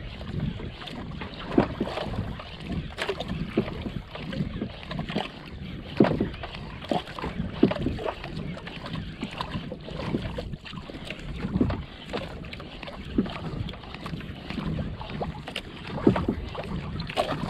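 Water slapping and sloshing against the hull of a small outrigger canoe, with wind buffeting the microphone and irregular knocks and bumps throughout.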